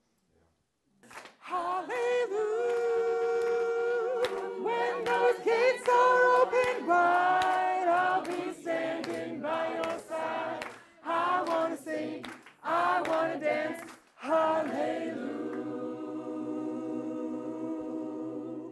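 Community chorus singing a cappella, with no instruments. The group comes in about a second in, sings phrases with short breaks between them, and ends on a long held chord.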